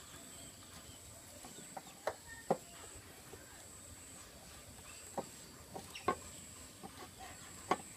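Chickens clucking now and then in short, scattered calls over a quiet steady background.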